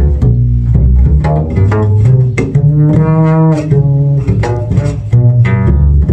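German double bass played in a run of low notes, about two a second, with one longer held note midway, recorded through a phone's microphone.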